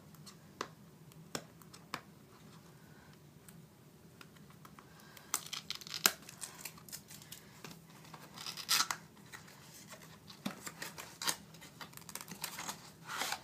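Tape being peeled and torn off a plastic-and-cardboard phone-case retail box, with packaging crinkling and clicking as it is handled. The tearing and scraping come in short bursts, busiest from about five seconds in, with a sharp click near six seconds and a louder rip near nine.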